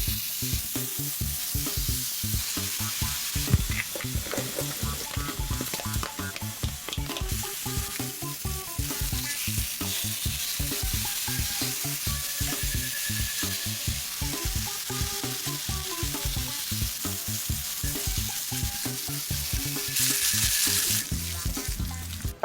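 Spicy Korean pork sizzling as it fries in a pan, a steady hiss that grows louder for a moment near the end, over background music.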